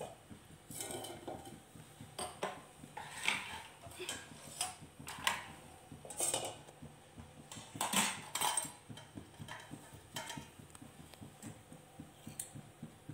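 Light, irregular clinks and knocks of a perforated metal skimmer ladle against an aluminium pan as the pan is set on the stove and handled, about a dozen separate metallic taps with brief ringing.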